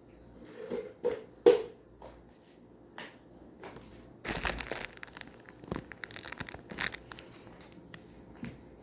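Irregular handling noises: crinkling and rustling with a few sharp knocks. The loudest knock comes about one and a half seconds in, and a longer rustle runs from about four to five seconds in.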